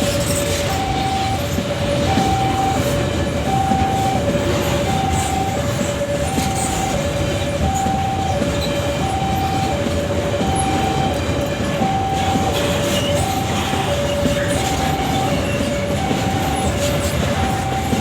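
Long Babaranjang coal train rolling past with a steady heavy rumble of wheels and wagons. Over it, an electronic two-tone warning alarm alternates high and low without a break, one high–low cycle about every 1.3 seconds.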